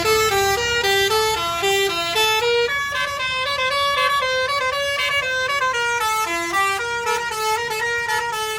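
Bus 'basuri' telolet horn playing a tune: a loud, unbroken run of short stepped notes, several a second, over a low rumble.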